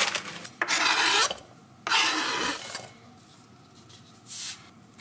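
Rasping, rustling handling noise as salad is added to a meal: two long bursts in the first three seconds and a short one near the end.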